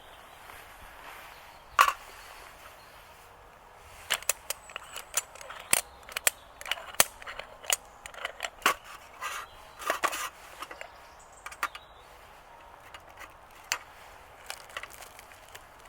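Dry wood cracking and snapping: a single sharp crack about two seconds in, then a dense run of sharp cracks from about four to eleven seconds in, thinning out toward the end.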